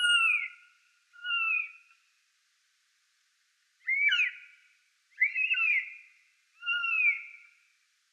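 Eurasian jay calling: five short whistled calls, each rising briefly and then falling in pitch, with pauses between them and a longer gap after the second.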